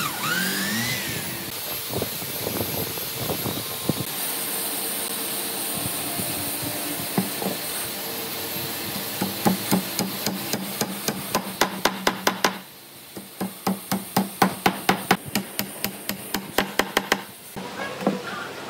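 Hammer blows on wood. After a stretch of scattered knocks and handling, the blows come in a quick, even run of about three a second through the second half.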